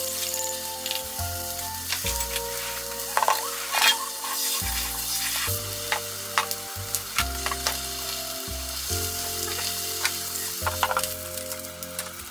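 Cabbage wedge sizzling in a frying pan, with a few sharp clinks of a spoon stirring in a small ceramic bowl, over background music with stepping notes.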